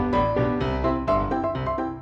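Instrumental background music: a run of piano notes, changing several times a second, over a low bass line.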